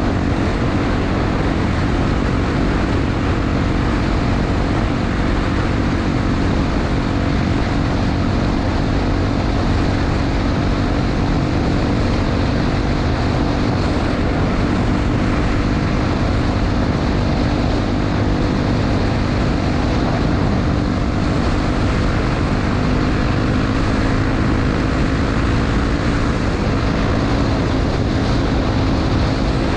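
Honda XR250 Tornado's single-cylinder four-stroke engine running steadily while riding, under heavy wind and tyre noise.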